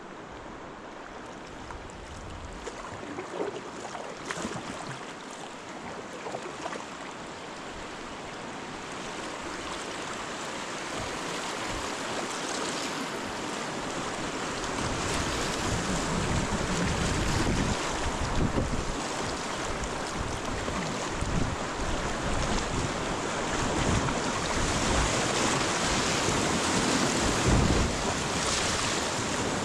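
River water rushing through a riffle or small rapid, growing louder over the first half and then holding steady, with occasional low thumps.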